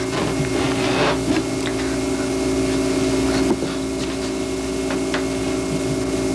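Handling noise from a camcorder being set in place, with knocks and rustling, then movement as a person steps back and sits down, over a steady hum.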